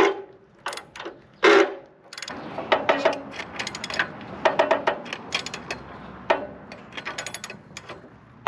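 Socket ratchet clicking in quick runs as its long pipe-extended handle is swung back and forth on the half-track's idler adjusting bolt, pushing the idler swing arm against its spring to slacken the track. Two sharp knocks near the start, then steady rapid ratcheting from about two seconds in.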